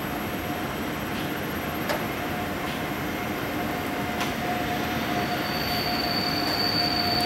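A train running on the line, its noise slowly growing louder, with a couple of sharp clicks. About five seconds in, a high, steady wheel squeal sets in.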